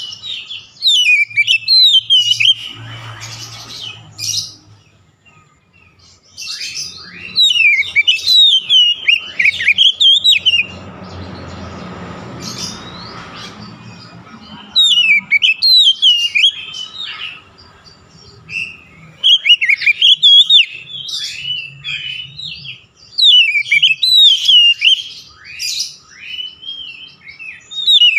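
Oriental magpie-robin singing in about five loud bursts of rapid, varied whistled phrases, each a few seconds long, with short pauses between.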